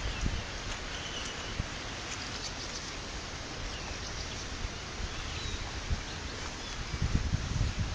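Steady hiss of outdoor ambience with faint short bird chirps and a few low thumps near the end.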